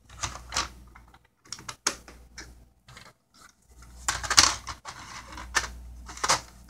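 Irregular clicks and rustling of something being handled, with a longer, louder rustle about four seconds in.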